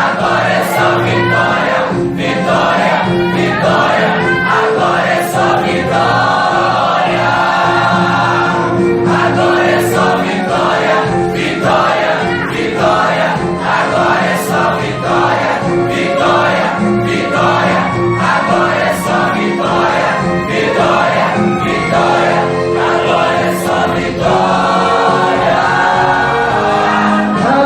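A choir singing a gospel hymn over sustained instrumental accompaniment.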